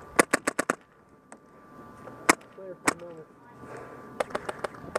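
Airsoft guns firing: a quick burst of about six shots, two single shots, then another rapid burst near the end.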